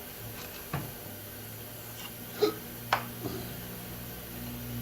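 A few short clicks and knocks of metal shop parts being handled, the sharpest about halfway through, over a steady low machine hum that grows slightly louder near the end.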